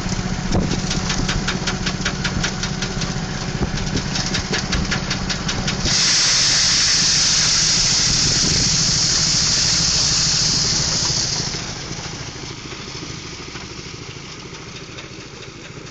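Engine-driven rice threshing machine running, with rapid even ticking over the engine hum. About six seconds in a loud hissing rush joins for roughly five seconds, then the sound drops to a quieter steady run.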